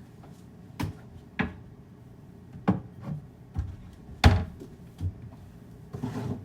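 A series of separate knocks and thuds as kitchen items are set down and put away on a counter or in a cupboard, the loudest about four seconds in, with a short rustle near the end.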